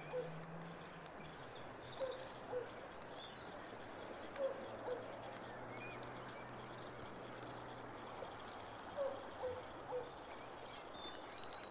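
An animal calling in the distance: short sharp notes in twos and threes that come back every two or three seconds. Faint high bird chirps and a low steady hum run underneath.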